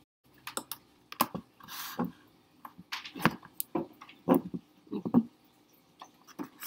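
Handling noise from a camera being moved and remounted: an irregular string of clicks and knocks, with a brief rustle about two seconds in.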